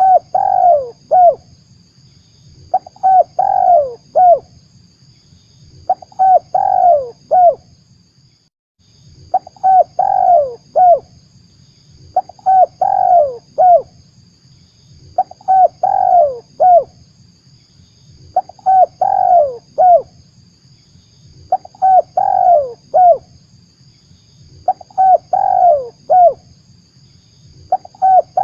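Spotted dove (tekukur) cooing, a lure call for trapping wild doves: a short three-note phrase with a longer falling coo in the middle, repeated about every three seconds. A low steady hum runs under the calls and drops out briefly about eight seconds in.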